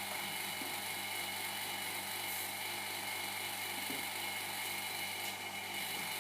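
Electric vacuum pump of a manual LCD laminating machine running with a steady hum and whine, holding the LCD down by suction, with a few faint handling knocks.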